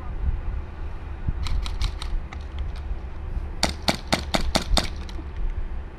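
Airsoft guns firing in quick strings of sharp cracks: about five shots about one and a half seconds in, a few scattered ones after, then a stronger run of about six shots at roughly five a second starting about three and a half seconds in. Wind rumbles on the microphone underneath.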